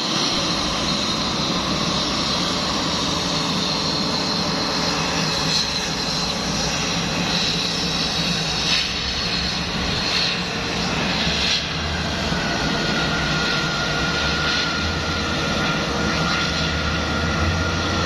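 Airliner engines running steadily as the plane passes, with a thin whine coming in about two-thirds of the way through.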